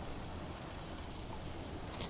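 Faint, steady wind noise: a low rumble of breeze on the microphone, with no distinct events.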